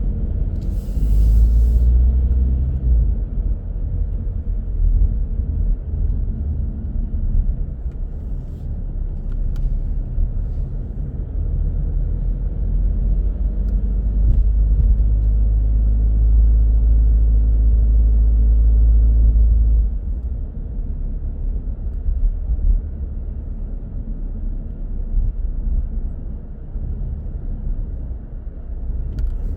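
A car driving on the road: a steady low rumble of tyres and engine. It swells about halfway through and drops suddenly about two-thirds of the way in, with a short hiss about a second in.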